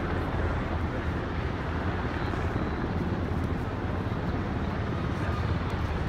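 Several Navy MH-60S helicopters flying in, heard as a steady low rotor and engine drone, with crowd voices mixed in.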